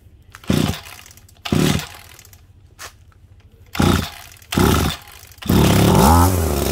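Small two-stroke engine of a Shindaiwa backpack pole saw being pull-started: four short bursts of cranking from the recoil starter cord, then it catches about five and a half seconds in and runs, its pitch rising and falling with blips of throttle.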